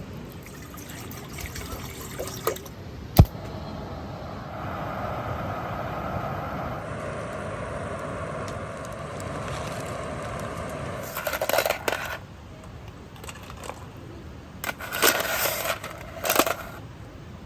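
Liquid pouring steadily into a container for several seconds, then bursts of light metal or dish clinks.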